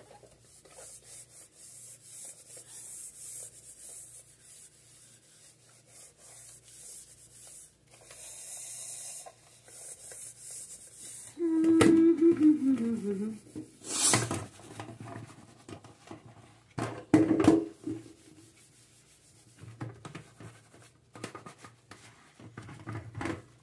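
Soapy sponge scrubbing a metal pot over a stainless-steel sink, a soft rubbing. About halfway through comes a short squeal that falls in pitch, followed by a few sharp clanks of the pot being handled against the sink.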